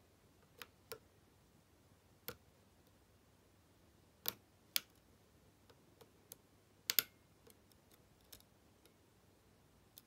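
A short hook pick and an Allen-key tension wrench working the pin tumblers of an American Lock 1100 five-pin padlock. There are about ten faint, sharp, scattered clicks, and the loudest come around the middle and about seven seconds in.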